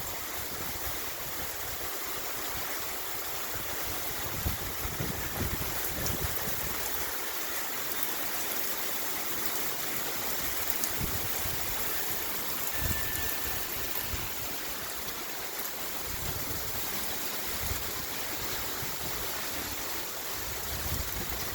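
Heavy rain falling in a steady hiss, with short gusts of wind now and then buffeting the microphone.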